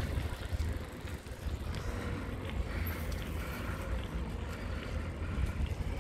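Wind buffeting the microphone of a camera on a moving bicycle: a steady low rumble that swells and dips, with faint scattered ticks from the ride.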